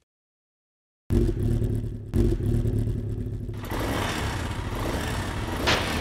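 Motorcycle engine sound effect: the engine cuts in suddenly about a second in, blips once a second later, then revs harder, with the sound filling out higher from about halfway through as the bike pulls away.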